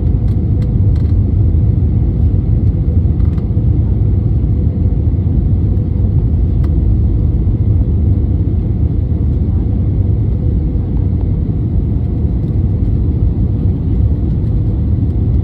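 Jet airliner cabin noise heard from inside the cabin: a steady low rumble of engines and airflow, with a steady hum running through it.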